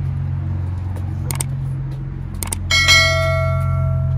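Subscribe-button animation sound effect: two quick clicks, then a bell ding that rings on with several tones and slowly fades. A steady low hum runs underneath.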